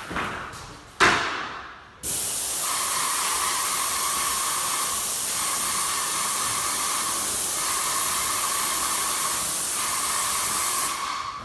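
Airless paint spray gun spraying the wall: a steady loud hiss from the tip that starts abruptly about two seconds in and eases off near the end, with a faint tone inside it that drops out a few times. A sharp knock about a second in, just before the spray starts.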